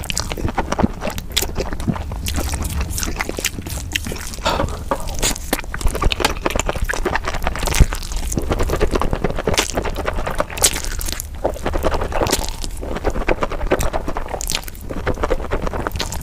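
Close-miked eating sounds: thin noodles in thick spicy sauce being slurped and chewed wetly, with a rapid run of sticky smacking clicks, played at double speed.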